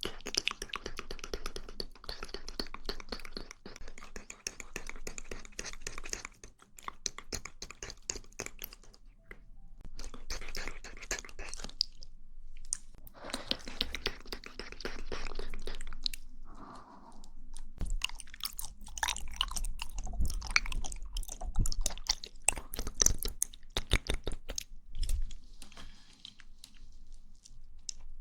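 Close-miked mouth sounds of eating jelly: soft wet chewing with quick smacking clicks, broken by a few short pauses and a couple of longer, steadier wet stretches.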